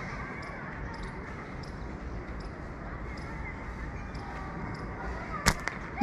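Slingshot with flat rubber bands fired: a steady outdoor background, then a sharp snap of the band release about five and a half seconds in, with a smaller click just after.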